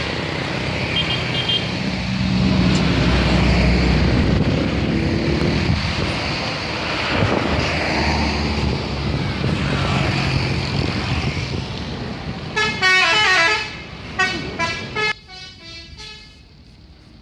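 Tour bus engine running with road noise, then about twelve seconds in a telolet horn, a multi-tone musical bus horn, plays a quick run of tooting notes stepping down and repeating for about three seconds.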